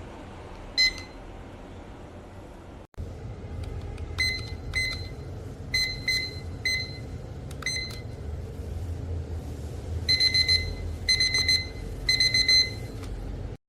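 Digital kitchen timer beeping: single short high-pitched beeps at uneven intervals, then from about ten seconds in three clusters of rapid beeps, its alarm going off. A low rumble runs underneath.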